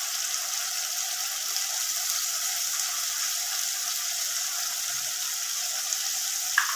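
Spiced onion-tomato paste with ginger-garlic paste and turmeric frying in hot oil and ghee in an aluminium kadai on a low gas flame: a steady sizzle, with one sharp click near the end.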